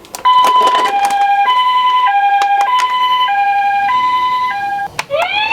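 Ambulance siren in the Japanese two-tone hi-lo pattern, alternating a higher and a lower note about every two-thirds of a second, with scattered sharp clicks. Near the end the two-tone stops and a rising wail begins.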